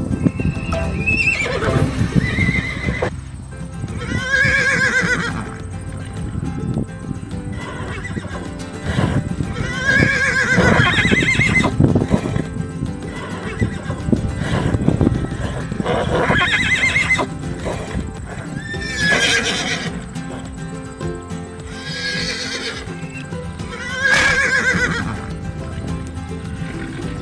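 Horses neighing and whinnying over and over, one falling call every few seconds, over background music.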